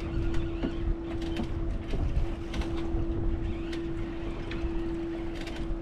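A boat's engine hums steadily under low rumbling wind noise on the microphone, with scattered light clicks.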